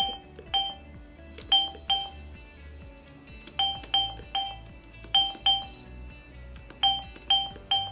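Hyosung ATM keypad beeping with each key press, about a dozen short electronic beeps, often two in quick succession, as letters are keyed into the message editor.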